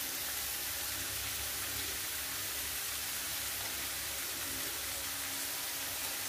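Diced beetroot, potato and green chillies sizzling steadily in coconut oil in a frying pan over a low gas flame.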